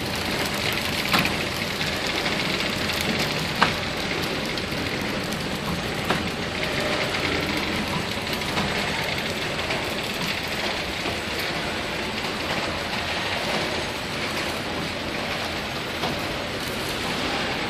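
KT-450X horizontal flow-wrapping machine running steadily, a continuous mechanical whir and rush as it wraps coffee-stick sets in film, with a few sharp clicks, the loudest about three and a half seconds in.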